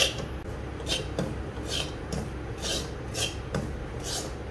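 Metal spoon scraping the bottom of a metal wok while stirring sorghum flour as it roasts, in repeated short rasping strokes about twice a second.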